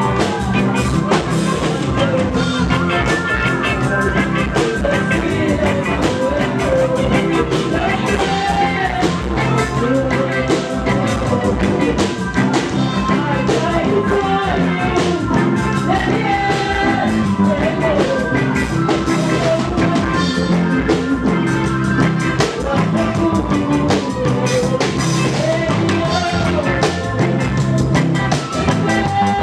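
Live reggae band playing: a drum kit keeps a steady beat under a sung melody.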